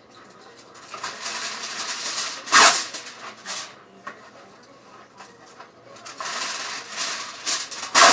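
Kitchen handling noises: two stretches of rustling from a package being handled, each ending in a sharp, loud clatter, the first about two and a half seconds in and the second near the end.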